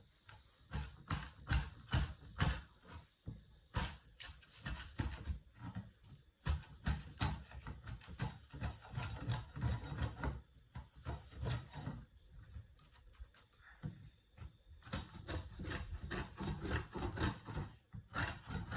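Hand tools cutting a joint in a rough-cut hemlock timber: a quick, irregular series of sharp wooden knocks and scraping strokes, a few per second, with a brief lull about two-thirds of the way through.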